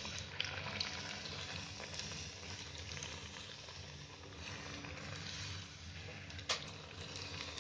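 A rice-flour onion-and-cucumber vada deep-frying in hot oil in a kadhai, sizzling steadily as a slotted spoon turns it, with a sharp click about six and a half seconds in.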